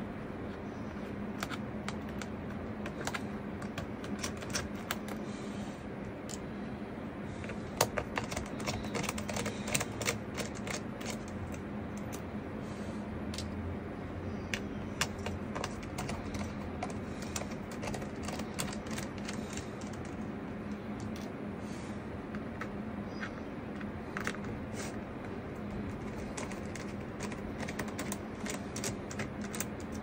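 Small irregular clicks and taps of a precision screwdriver with a T5 Torx bit working screws out of a laptop's bottom case, bunched in clusters, over a steady low hum.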